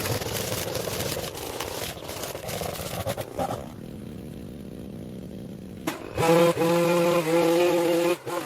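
Small gas engine of a piece of yard equipment, such as a string trimmer or mower. It runs at a steady high pitch, starting loud about six seconds in with a few brief dips. Before that comes a stretch of rough noise that drops to a low rumble.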